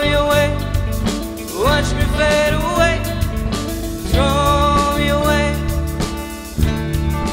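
A live rock band playing: drum kit, electric bass and electric guitars, with a lead line of long held notes that each slide up into pitch, three times.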